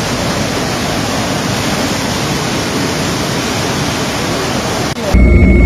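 Steady rushing of fast-flowing floodwater, an even hiss with no break. About five seconds in it cuts abruptly to a louder helicopter heard from inside the cabin: a heavy low rumble with steady whining tones.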